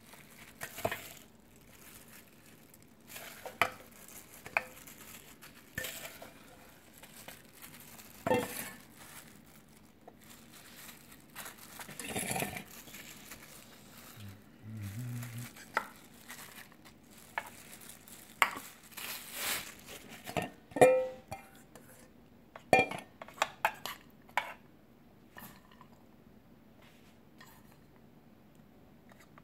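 Scattered clinks, taps and scrapes of a stainless-steel mixing bowl knocking against a metal muffin pan while filling is scooped and pressed into the cups, with a few louder knocks.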